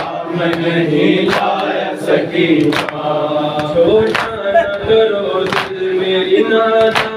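Men chanting a noha, a Shia lament, together in a group. Sharp hand slaps on the chest (matam) beat time about once every three-quarters of a second.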